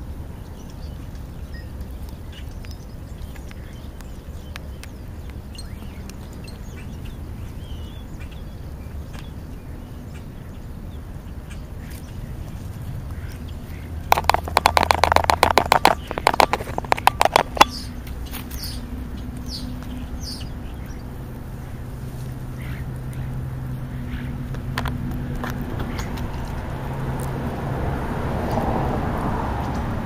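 Black vultures feeding right at the microphone, with small clicks and rustles as they pick at the food. About halfway through comes a loud burst of rapid rasping pulses lasting a few seconds.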